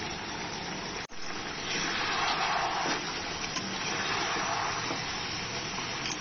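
Chicken pieces sizzling in a kadai over a high gas flame as they are stirred with a spatula, being fried down until their liquid dries off. The frying hiss swells and eases with the stirring, and cuts out briefly about a second in.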